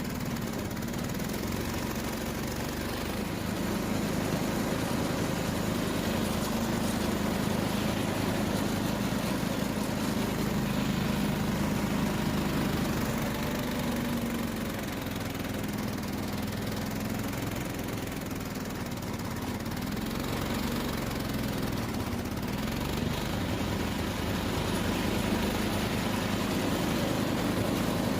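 Case Ingersoll garden tractor's engine running steadily, its pitch wavering slightly up and down with load.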